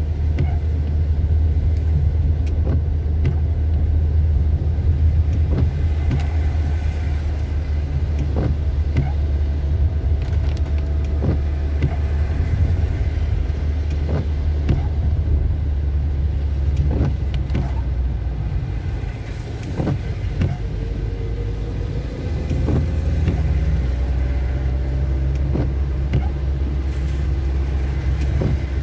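Steady low rumble of a car's engine and tyres on a wet road, heard from inside the cabin, with scattered taps of rain on the windscreen. About two-thirds of the way through, the sound dips briefly, then a faint rising engine note follows as the car picks up speed.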